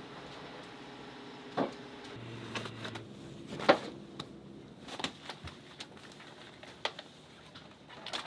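A few sharp knocks and clunks of gear being handled and stowed on a boat's deck, the loudest about three and a half seconds in, with a brief low hum in between.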